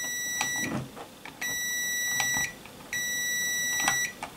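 A multimeter's continuity buzzer beeps three times at one steady high pitch, each beep about a second long with a short gap between, as the circuit between the microphone's white TX wire and its common wire is made and broken.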